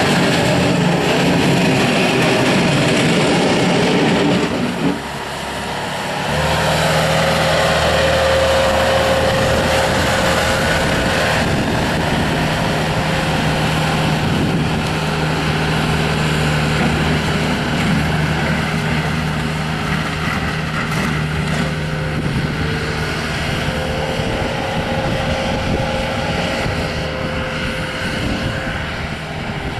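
Bobcat S300 skid steer loader's diesel engine running continuously as the machine is operated, dipping briefly about five seconds in before settling into a steady drone.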